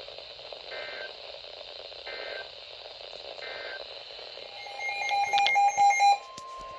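Weather radio receiver over a steady hiss: three short bursts of digital SAME data (end-of-message code) follow the end of an alert broadcast, then a louder electronic alert beeping at several pitches sounds about five seconds in, and a steady single-pitched tone starts just after it.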